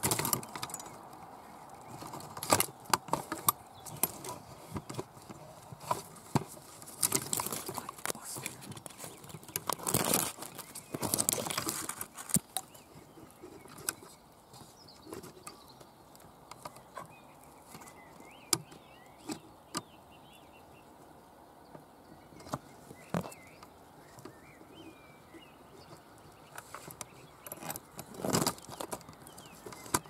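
Twigs and thorn-bush branches cracking, scraping and rustling against the camera as it pushes in among a magpie's stick nest: irregular sharp crackles, thickest in the first half and again near the end. Faint bird calls in the background in the second half.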